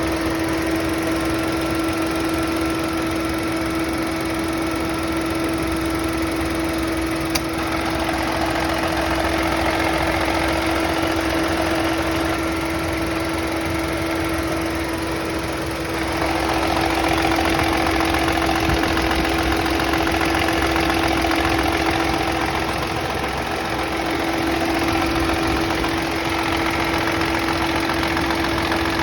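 Chevrolet Onix engine running at idle with a strong steady whining tone over the engine noise; the owner takes it for an abnormal engine noise he cannot identify. A single sharp click about seven seconds in, and the sound grows a little louder about sixteen seconds in.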